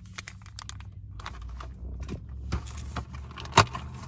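A cardboard advent calendar door being opened and the packaging behind it handled: a run of small irregular crinkles and clicks, with one sharper click about three and a half seconds in.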